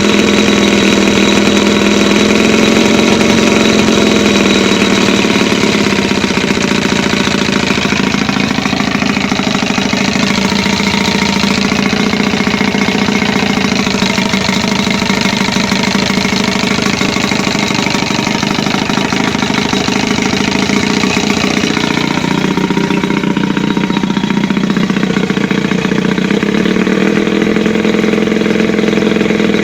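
Johnson 15 hp long-shaft outboard motor, a two-cylinder two-stroke, running steadily. Its speed dips slightly about a quarter of the way in, drops again about three quarters in, then picks back up near the end.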